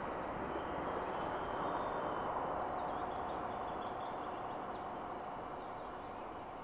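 Synthesized drone from a Pure Data Automatonism patch: a dense, steady noisy wash, with a held tone entering about three seconds in; it swells slightly, then slowly fades.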